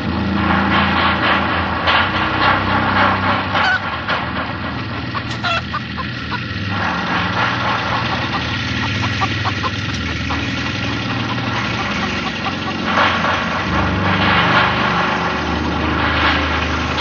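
An engine running loudly and steadily, with rough swells in level.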